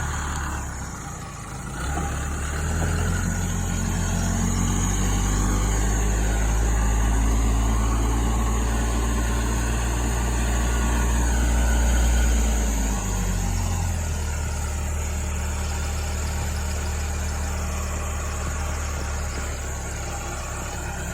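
1998 Case 580L backhoe loader's four-cylinder diesel engine working while pushing snow. The engine dips about a second in, picks up at about two seconds and holds higher until about thirteen seconds in, then settles back to a lower, steady speed.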